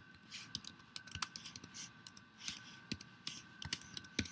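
Typing on a computer keyboard: a quick, irregular run of key clicks as a search query is entered.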